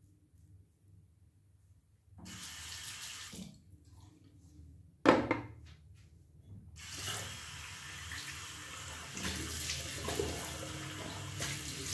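Bathroom tap running into a sink. The water starts about two seconds in and stops briefly, a sharp knock comes about five seconds in, and then the water runs steadily.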